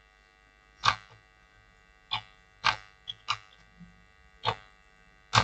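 Computer keyboard keys tapped one at a time: about seven separate clicks spread over a few seconds, over a faint steady electrical hum.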